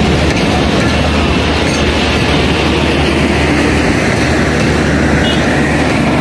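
Passenger coaches of an express train passing close by at speed: a loud, steady rumble and rush of steel wheels running on the rails.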